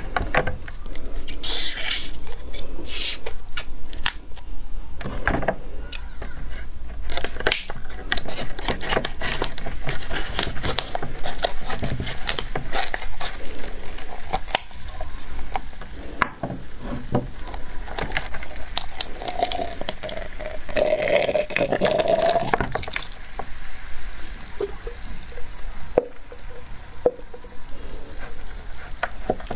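Plastic Coca-Cola bottle of frozen cola slush being cut open with scissors and peeled off the ice: many sharp crackles and crinkles of the plastic and scissor snips, with wet dripping of melted cola. A longer squeak comes about two-thirds of the way through.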